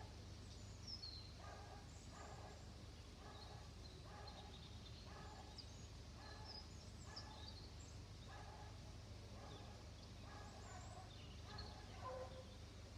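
Electronic level-crossing warning bells (TD 96/2 units) ringing faintly, an even repeated ding about one and a half times a second, while the crossing is active for an approaching train. Birds chirp high above it.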